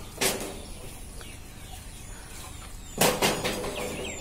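A long bamboo pole knocking into a tree's branches, shaking the leaves in two short rustling bursts: a small one about a quarter second in and a larger one about three seconds in.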